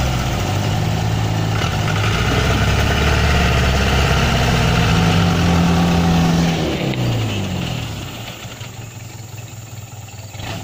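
Truck engines held at high revs under load while a stuck, loaded truck is pulled out of mud on a tow rope. About seven seconds in the revs fall away and the engine sound drops toward idle.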